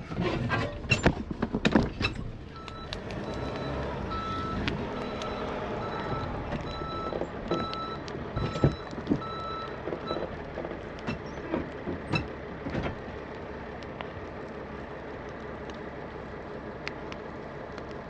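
Pickup truck backing up with its engine running and a reverse warning beeping at an even pace for about seven seconds, then stopping. There are a few sharp knocks at the start.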